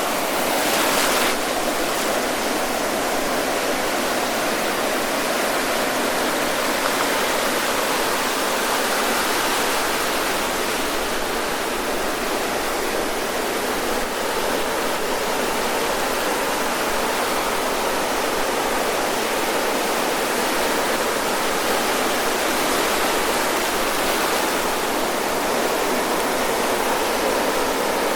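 Ocean surf breaking and washing up the shore, a continuous rushing of water that swells and eases, with a brighter hiss of a breaking wave in the first second.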